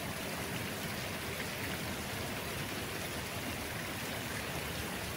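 Steady rain falling together with the even rush of muddy floodwater flowing over a stony riverbed, a constant hiss.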